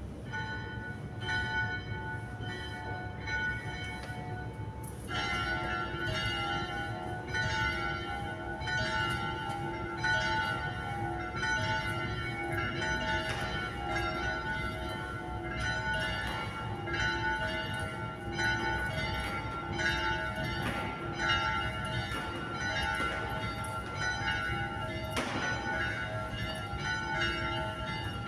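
The chapel's two bells, cast by Daciano Colbachini in 1922 and tuned to E4 and F♯4, are rung by rope for the "parie" call before Mass, heard from inside the church below. At first one bell strikes alone. The second joins about five seconds in, and their strokes then overlap steadily.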